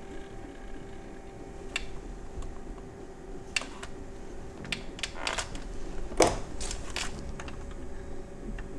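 Scattered small clicks and taps from hands working on a GM truck instrument cluster as its gauge needles are reset, the loudest just past six seconds, over a faint steady hum.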